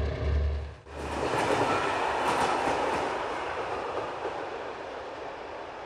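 A diesel locomotive engine hums steadily and cuts off abruptly about a second in. Then comes the rushing noise of a train rolling on rails, which slowly fades.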